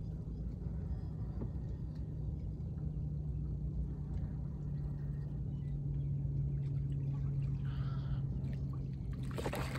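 Steady low rumble around a small boat on the water, with a steady low hum that begins about half a second in and carries on throughout while the angler plays a fish.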